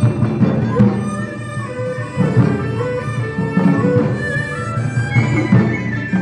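Chinese traditional instrumental music: a bamboo flute (dizi) carries the melody over plucked pipa and ruan lutes.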